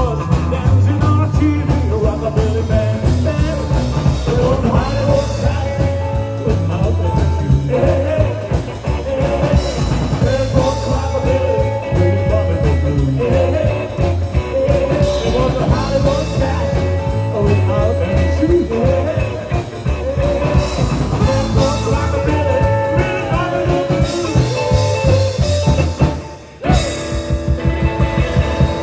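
A live rock and roll band playing: upright double bass, drum kit and electric guitar. The band breaks off briefly about 26 seconds in, then the drums beat on alone.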